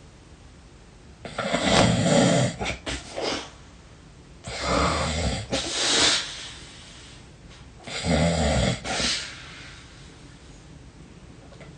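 A person snoring deeply and heavily: three loud snores about three seconds apart, each lasting one to two seconds.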